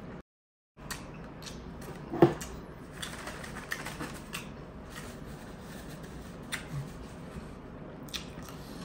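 Close-miked mukbang eating sounds: chewing food with scattered crisp clicks and crackles, and one louder knock about two seconds in. A brief dead-silent gap cuts in just after the start.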